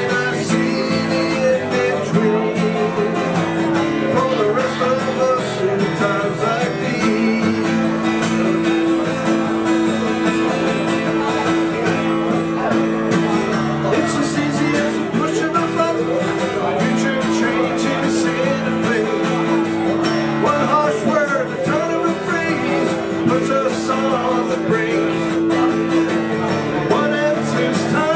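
Acoustic guitar played steadily in a country-folk style, with a man singing along.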